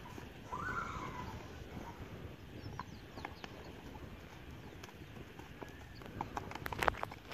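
Mangalarga Marchador horse's hoofbeats on a dirt track as it is ridden at its gait, with sharper knocks near the end. A horse gives a brief falling whinny about half a second in.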